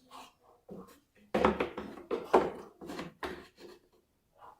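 Washing machine's protective cover being handled and pushed into place on the machine's underside: a run of irregular knocks and scraping rubs, starting about a second and a half in and lasting about two seconds.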